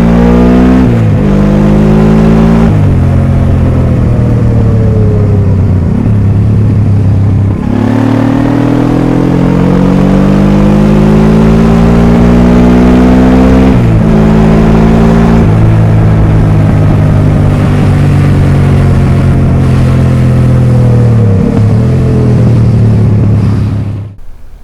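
Honda Transalp motorcycle engine and exhaust accelerating through the gears. The note climbs, then drops back at each shift, about six times, and cuts off abruptly near the end.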